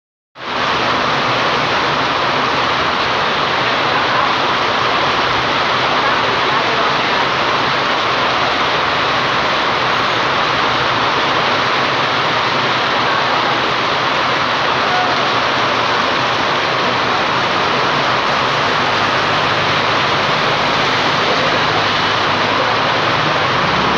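Very heavy rain pouring down, a dense steady hiss that does not let up.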